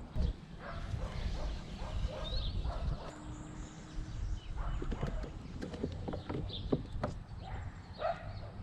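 A ratchet strap being worked while tightening it over traction boards on roof crossbars: a run of irregular short clicks and knocks, over a steady low rumble.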